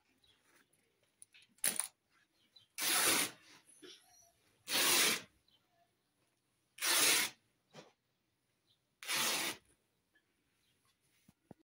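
Cotton cloth rustling and swishing as it is handled, folded and shaken out: five short swishes about two seconds apart, with quiet in between.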